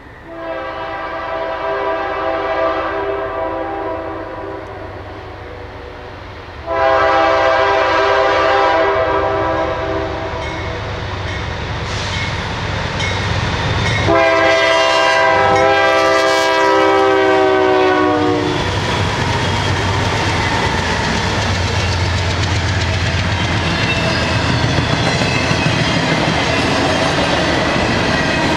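Air horn of a GE Dash 9 (C44-9W) locomotive leading a freight train, sounding three long blasts for a grade crossing; the last blast drops in pitch as the engine passes. Then the double-stack intermodal train rolls by with steady rumble and clickety-clack of the wheels.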